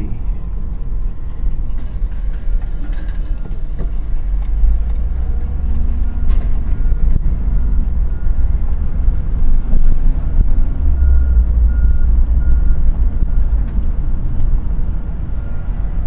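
Car and towed utility trailer driving slowly over pavement: a steady low engine and road rumble with scattered light clicks and rattles. A faint backup beeper repeats in the second half.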